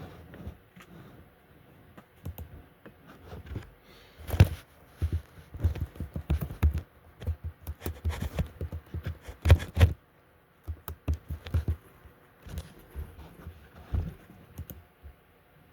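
Irregular clicking and tapping on a computer keyboard, with louder knocks about four and a half and nine and a half seconds in.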